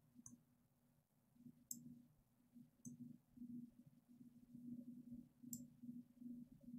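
Near silence: faint room tone with a low hum, and a few soft computer mouse clicks spaced a second or more apart.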